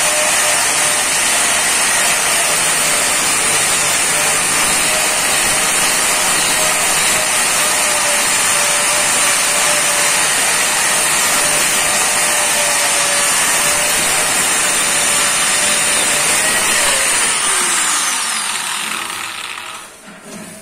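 Handheld electric angle grinder running at full speed with a steady high whine, its disc working the edge of a granite strip. Near the end it is switched off and the whine falls in pitch as the disc spins down.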